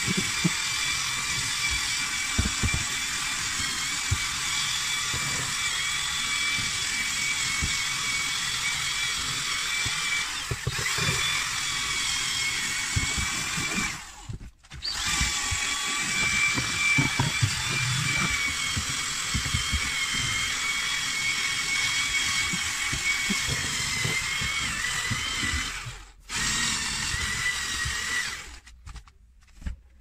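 Cordless drill spinning a round scrubbing brush on wet, foamed car carpet: a steady motor whine over the rubbing of the bristles on the carpet. It cuts out briefly about halfway and again near the end, then stops shortly before the end.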